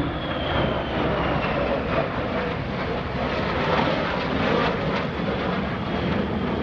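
Jet noise from an F-35C Lightning II's single Pratt & Whitney F135 turbofan in flight: a steady loud rush, with a high whine that slowly drops in pitch over the first couple of seconds.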